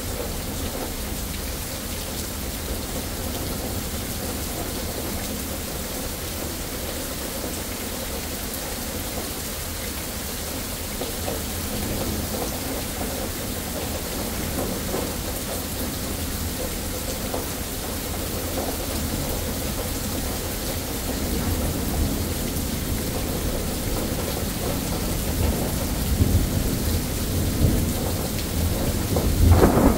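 Thunderstorm: steady rain falling with low rolling thunder underneath, the thunder growing louder and stronger over the last ten seconds or so.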